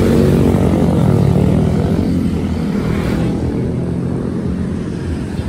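Road traffic passing close by: motorcycle and car engines running with tyre noise, loudest in the first couple of seconds, then easing off a little.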